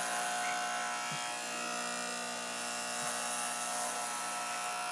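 Electric hair clippers running with a steady buzz while being pushed through thick curly hair.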